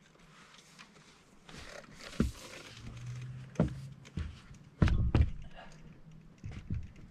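Thunks and clunks of an electric bike being handled and set upside down: a few single knocks, then a louder cluster of clunks about five seconds in, and two lighter knocks near the end.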